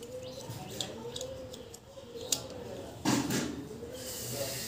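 Light clicks and taps of small parts and tools being handled, with a sharp click about two seconds in and a louder knock a second later.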